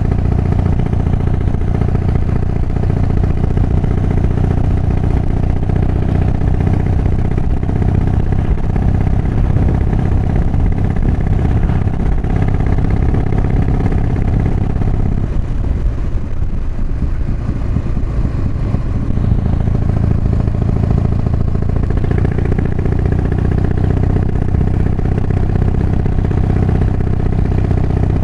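Harley-Davidson Softail's V-twin engine running under way with its ignition timing advanced, heard through a microphone inside a Bell Moto 3 helmet. The engine note eases for a few seconds about halfway through, then picks up again.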